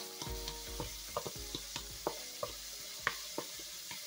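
Small tomatoes tumbling from a plastic bowl into an aluminium pot: a dozen or so irregular knocks, some with a short metallic ring. Underneath is the steady sizzle of onion, garlic and herbs frying in oil.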